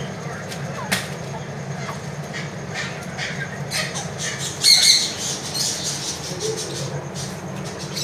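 Caged birds chirping and squawking over a steady low hum, with a louder burst of calls about halfway through.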